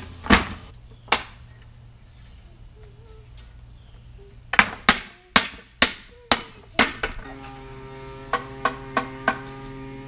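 Hammer blows on the boards of a wooden pallet being knocked apart: a couple of sharp whacks near the start, then a run of six loud strikes about half a second apart. From about seven seconds in, background music with a sustained tone and light regular percussion takes over.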